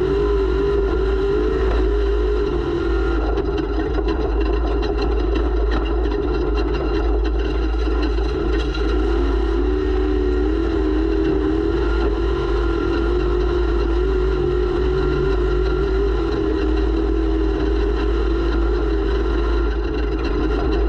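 Off-road race vehicle's engine running steadily under way, recorded by a camera mounted on the vehicle, with a heavy low rumble of vibration and wind over it. The engine pitch wavers and dips slightly a couple of times as the throttle changes.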